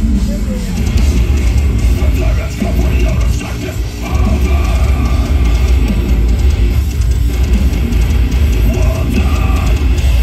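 A metalcore band playing live through a festival PA: distorted electric guitars, bass and a pounding drum kit, heavy in the low end. The band thins out briefly about three seconds in, then comes back in full.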